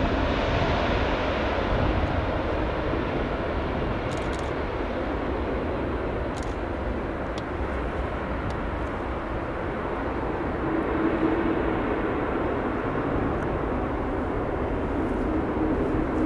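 Jet airliner's engines rumbling steadily as the aircraft moves away, the hiss in the sound fading over the first few seconds.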